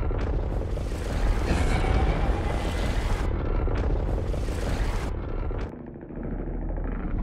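Monster-battle sound effects: a deep, continuous rumble with hissing, crackling noise on top that swells twice and thins out for a moment about six seconds in.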